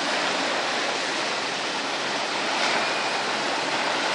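Small lake waves breaking and washing up on a pebbly shore, a steady surf noise.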